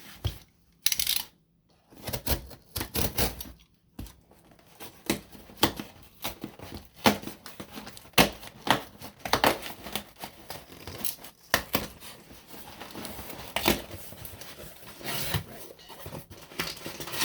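A book subscription box and its packaging being torn open by hand: repeated short tearing and crinkling, with sharp scrapes and rustles.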